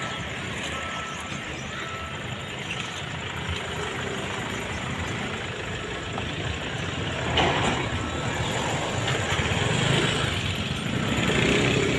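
Engine of a small track-inspection railcar running as the car approaches slowly along the line, growing gradually louder.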